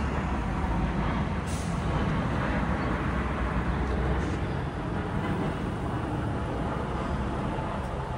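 Street traffic rumble from a heavy vehicle passing, with a short hiss about a second and a half in.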